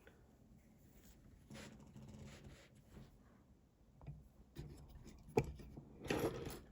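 Faint handling noise of a euro lock cylinder's small pins being worked out: light scraping and rubbing, scattered small clicks, and a sharper click about five and a half seconds in.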